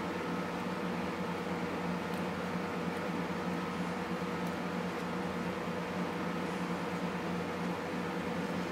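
Steady background hum from a fan or similar machine running, with a few faint small clicks.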